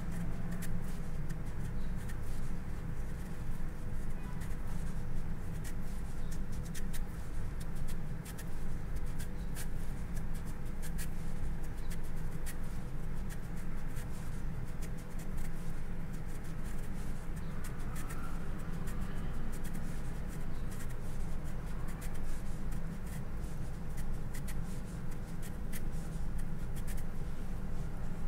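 A long kitchen knife shaves a daikon radish into one thin continuous sheet (katsuramuki peeling), making a run of faint crisp ticks and a fine scraping. A steady low hum runs underneath.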